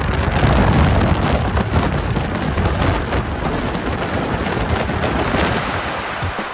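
Wind buffeting a phone microphone held out of the window of a car at highway speed, a steady heavy rush with the car's road and tyre noise under it.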